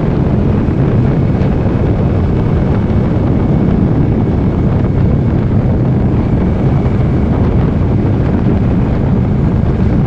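Motorcycle under way: a Suzuki Intruder Classic 400's V-twin engine running steadily, mixed with wind noise on the microphone.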